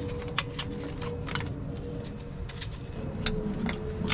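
Scattered light metal clicks and taps of hands and tools working at the distributor of a Mack Magnadyne gasoline straight-six, with a faint steady hum behind.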